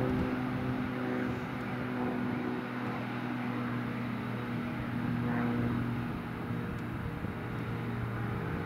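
Claas self-propelled forage harvester chopping grass, its engine and chopping gear running with a steady hum, together with the engine of the tractor pulling the silage trailer alongside.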